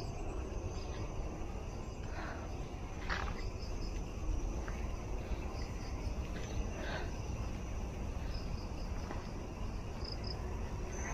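Night-time crickets chirping in short repeated bursts over a steady high insect trill, with a few brief rustles.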